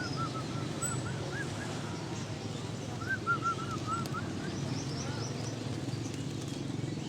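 Zebra doves (perkutut) calling in two runs of short, rapid, arched notes, one at the start and one about three seconds in. Fainter high chirps from smaller caged birds come through a steady low market din.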